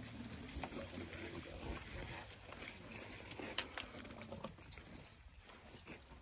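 African elephants shuffling and feeding in dry grass and brush at close range: soft rustling and crackling, with one sharp snap about three and a half seconds in.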